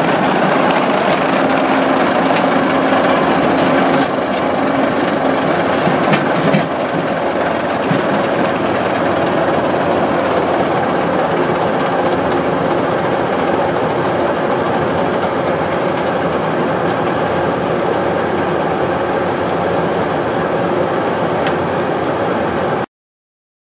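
Electric Badger tracked mining machine running and working, a steady mechanical noise from its electric drive. The sound cuts off suddenly near the end.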